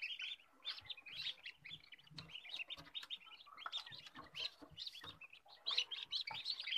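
Newly hatched ducklings peeping: many short, high peeps overlapping in a steady chatter.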